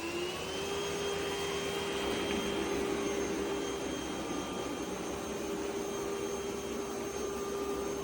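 Roborock Qrevo Curv S5X robot vacuum's suction motor running with a steady whirring hum. Its pitch rises slightly near the start, then holds level.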